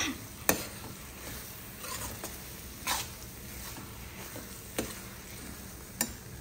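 A metal ladle stirring thick gongura tomato curry in a metal kadai, scraping through the curry with a handful of sharp clinks against the pan.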